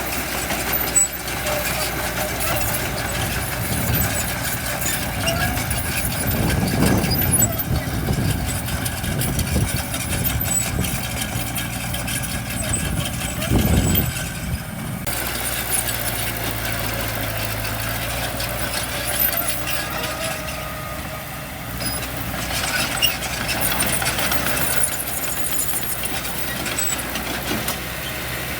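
Diesel engines of heavy construction machinery running steadily, swelling louder twice, about a quarter of the way in and again near the middle.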